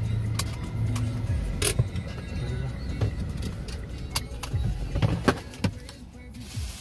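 Engine and road noise heard inside a car's cabin as it creeps along in traffic: a low hum that eases off after a second or so, with scattered clicks and knocks.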